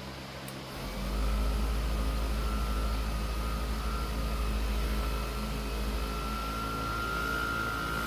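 Handheld power tool's electric motor starting about a second in and running steadily with a whine that climbs a little later on.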